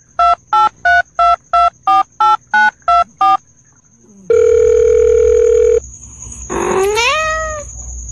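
Telephone keypad tones: eleven quick beeps of slightly different pitch, about three a second, as if numbers are being dialled. A steady phone tone follows for about a second and a half, then a short rising call near the end.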